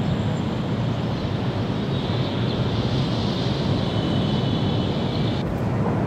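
Steady outdoor ambience: a low, even rumble with a thin high hiss over it that cuts off suddenly about five and a half seconds in.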